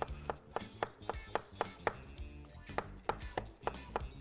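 A cleaver slicing a raw potato into thin strips on a wooden cutting board: quick, regular knocks about four a second, with a brief pause about halfway through.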